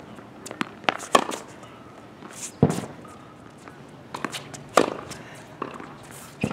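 Tennis ball struck by a racket in a groundstroke drill: several sharp hits one to two seconds apart, with lighter knocks of ball bounces and footsteps on the hard court between them.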